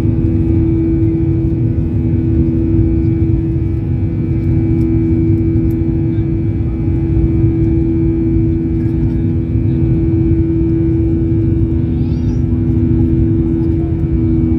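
Cabin noise of an airliner climbing just after takeoff: the jet engines make a steady drone, several constant tones over a low rumble.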